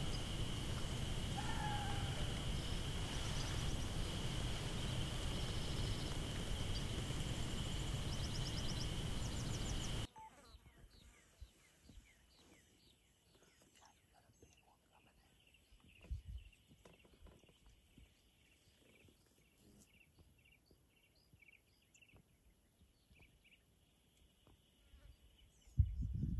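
Outdoor ambience of a steady high insect drone, a few short bird chirps and low rumbling noise. About ten seconds in it cuts abruptly to a much quieter background of faint chirps and insects, and a sudden low thump comes just before the end.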